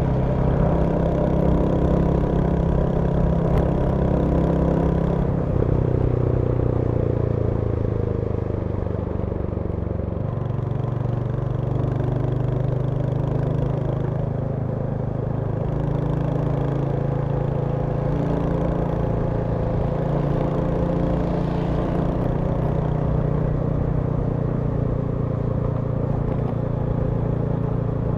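Royal Enfield Hunter 350's single-cylinder engine running under way, its note dropping in pitch between about five and ten seconds in, then holding steady.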